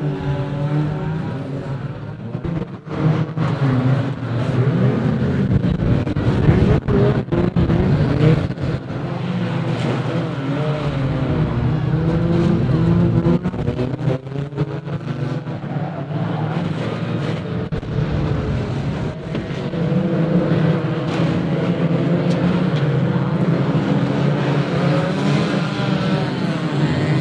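Several banger racing cars running round an oval, their engines revving and changing pitch as they pass. A cluster of sharp knocks comes between about 3 and 8 seconds.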